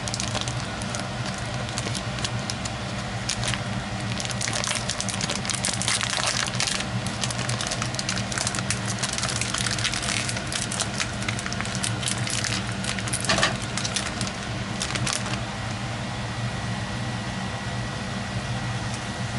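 Plastic packaging around raw hamburger patties being crinkled and pulled open by hand, in irregular rustling bursts that die away over the last few seconds. A steady low hum runs underneath.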